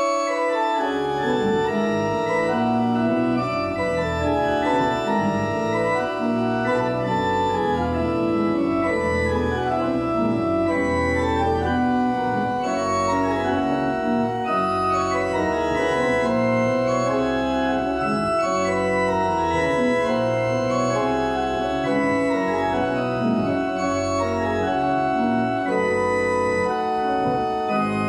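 Church organ playing a flowing piece in sustained chords, held notes moving from chord to chord without a break. Deep bass notes come in about a second in and carry on underneath.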